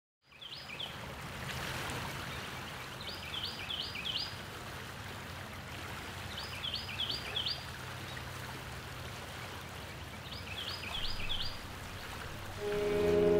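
Outdoor ambience with a steady background hiss and a songbird repeating a short phrase of three or four quick high chirps every few seconds. Near the end, held notes of music fade in.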